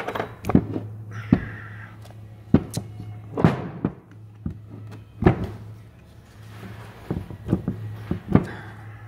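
Metal parts of an Alfa Romeo 5-speed gearbox knocking and clunking irregularly as the gear shaft assembly is worked loose from the transmission case by hand. A steady low hum runs underneath.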